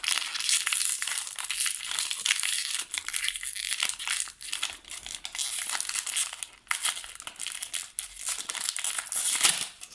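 Crinkly plastic wrapper of a toy accessory packet being crumpled and pulled at as it is worked open, a dense run of crackling with many small sharp crackles.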